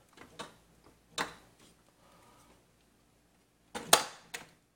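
A few short clicks and knocks from an EVGA GeForce GTX 1070 FTW graphics card and its PCIe power cables being handled inside a PC case. A single click comes about a second in, and the sharpest cluster comes about four seconds in.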